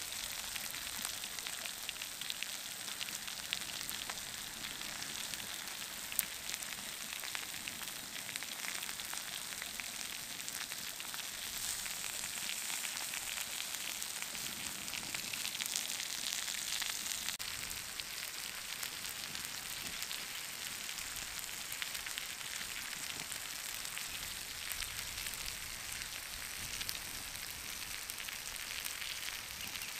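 Lamb meat and potato slices sizzling on a hot flat stone slab over a wood fire, a steady hiss with fine crackling pops, one sharper pop about six seconds in.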